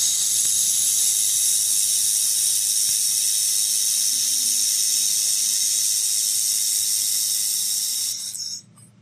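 Handheld fiber laser welding head welding a steel plate joint: a steady, high-pitched hiss with a faint whine in it that cuts off sharply about eight and a half seconds in.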